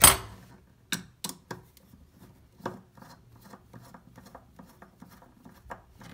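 Clear acrylic faucet handle set onto the faucet stem with a sharp click, followed by a few lighter knocks. Then a screwdriver turns the handle screw, with faint small ticks and scrapes.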